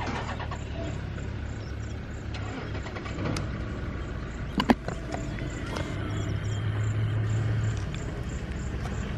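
Open safari game-drive vehicle's engine running with a steady low hum that swells a little for a couple of seconds past the middle. A single sharp click comes about halfway through.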